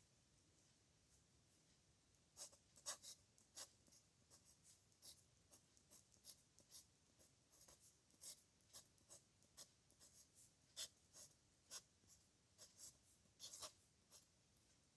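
Pen nib scratching on paper in handwriting: a faint series of short, irregular strokes beginning about two seconds in.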